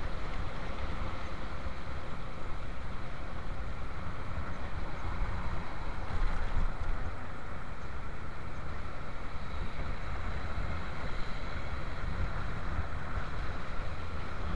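Steady wind rush and road noise from a moving motorcycle, with its engine running underneath.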